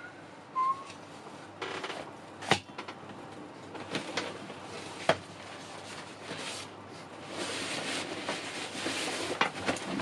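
Camping gear being handled and set down on a wooden workbench: fabric and nylon bags rustling, with a few sharp knocks as items are put down, one about two and a half seconds in and another about five seconds in. A brief high chirp sounds about half a second in, and the rustling grows denser near the end.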